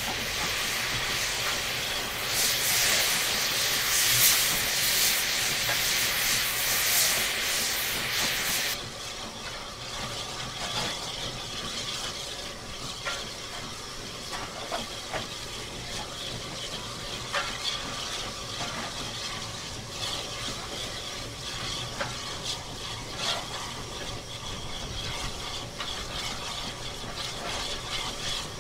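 Steam hissing loudly in the cab of Maunsell S15 steam locomotive No. 847 as it runs, cutting off suddenly about nine seconds in. After that the locomotive's running noise goes on more quietly, with scattered clanks and knocks from the footplate.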